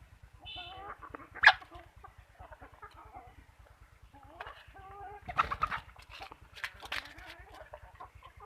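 Chickens clucking, with many short calls overlapping, a sharp loud call about a second and a half in, and a louder flurry of clucks a little past the middle.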